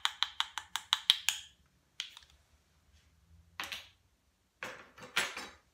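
Plastic measuring spoons tapped rapidly over a glass measuring cup to knock out cornstarch: about a dozen quick, sharp clicks in the first second and a half. A few separate knocks and a short rustle follow later.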